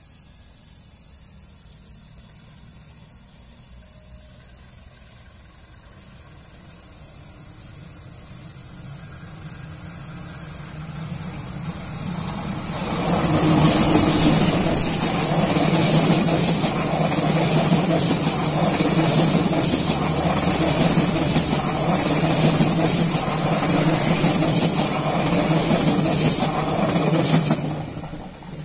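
Pasundan passenger train, led by a diesel-electric locomotive, approaching on a curve and growing louder from about seven seconds in, with a thin steady high whine, then the locomotive and a line of economy coaches running past with steady engine and rail noise. The sound drops away suddenly near the end as the last coach passes.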